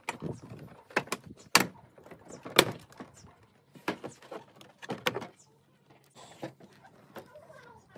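A series of sharp plastic clicks and knocks as hands handle a Ford Fiesta's front-end plastic trim panel and headlight housing. The loudest comes about two and a half seconds in.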